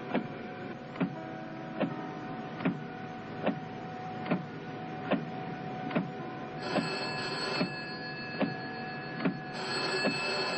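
Film soundtrack: a sharp, evenly spaced click a little more than once a second, over steady held tones that shift to a higher, brighter set about two-thirds of the way through.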